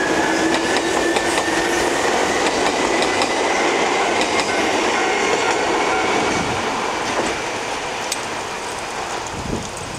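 Nagano Electric Railway train passing over a level crossing, wheels clattering over the rail joints, with a faint whine slowly rising in pitch. The noise fades away after about six seconds.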